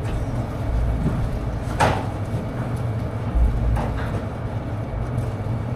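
Steady low machine rumble, with a couple of short clanks or scrapes about two and four seconds in.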